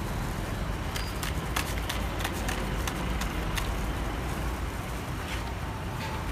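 Busy street background with a steady low rumble of traffic. A quick run of sharp clicks and clinks comes between about one and three and a half seconds in.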